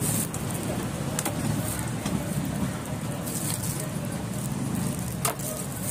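Clear plastic wrapping crinkling in short bursts as a plastic-wrapped bicycle part is handled, over a steady low background rumble, with a couple of sharp clicks.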